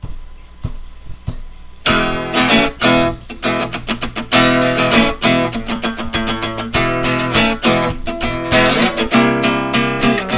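Intro music led by strummed guitar: a few soft plucked notes, then full, rhythmic strumming from about two seconds in.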